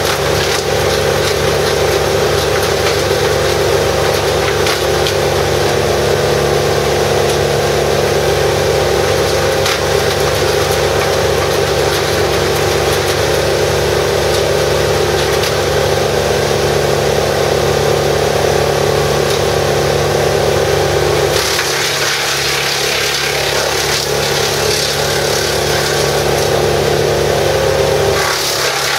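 Vermeer BC1000XL brush chipper running under load as branches are fed in and chipped, its engine drone mixed with the crackle and splintering of wood going through the cutter. The chipping lets up for several seconds about two-thirds of the way through, then picks up again near the end.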